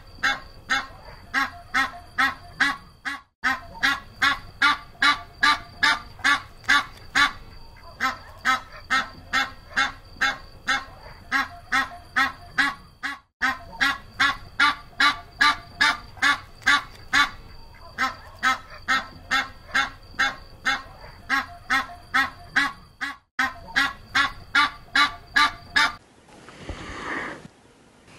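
Domestic goose honking over and over, about two to three loud honks a second. Near the end the honking stops and a softer breathy animal sound follows.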